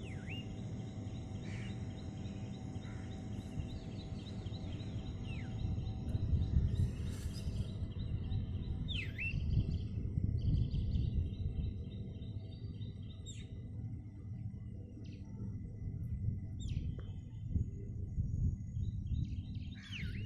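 Birds chirping, with scattered short calls that sweep down in pitch, over a steady low outdoor rumble.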